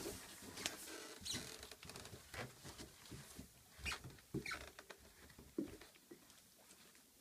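Faint footsteps on carpet with rustling of clothing and handling of the camera: irregular soft thumps and clicks, with a few brief brushing hisses.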